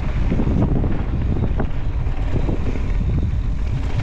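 Wind rumbling on the microphone as a mountain bike rolls fast down a dirt trail, with tyre noise and a few light knocks from the bike going over bumps.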